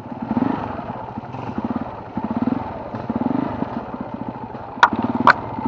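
Motorcycle engine running in surges that rise and fall back about once a second, as on a rough trail. Two sharp knocks come about half a second apart near the end.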